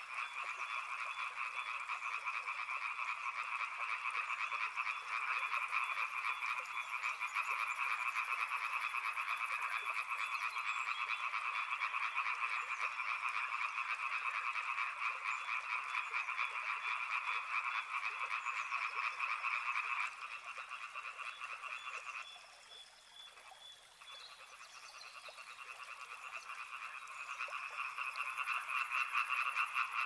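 A chorus of frogs calling: a dense, rapidly pulsing din that thins about two-thirds of the way through, stops for a couple of seconds, then builds back up near the end.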